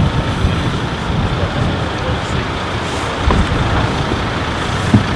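Bus engine running steadily with a low rumble, and a single sharp knock near the end.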